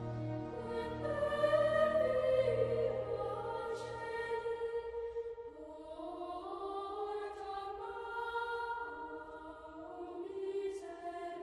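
Slow choral music: several voices sing long, held notes that step between pitches, with a few sung 's' sounds. A low held note underneath drops out about four and a half seconds in.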